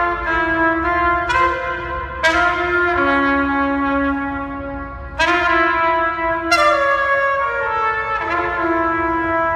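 Music of sustained brass chords that shift every second or so, with strong new attacks about two, five and six and a half seconds in.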